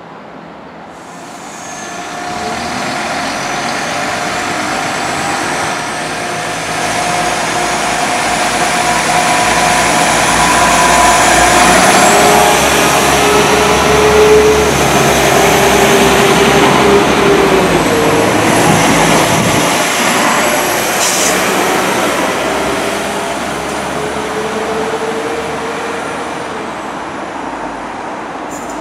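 A London Midland Class 172 diesel multiple unit running past close by. Its engine and drive make a few held tones that shift in pitch as it goes. The sound builds to its loudest about halfway through, then fades.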